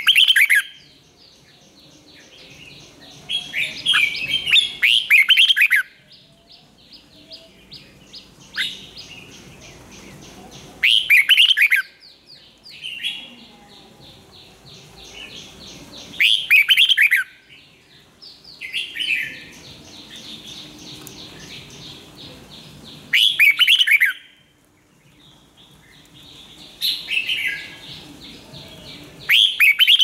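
Red-whiskered bulbul singing: short, loud, warbled phrases every few seconds. A faint, fast, high ticking chatter continues between the phrases.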